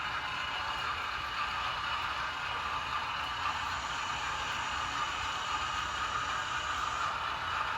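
HO scale model train running along the track: a steady whir with a light rattle, even throughout.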